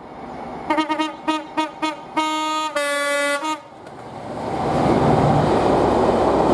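British train horn sounding a quick run of short toots, then two longer blasts. From about four seconds in, the rushing rumble of the train passing swells up and stays loud.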